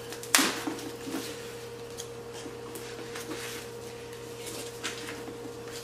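Paper stuffing being pulled out of a new handbag: a sharp rustle about a third of a second in, then faint scattered rustling and small handling ticks over a steady low hum.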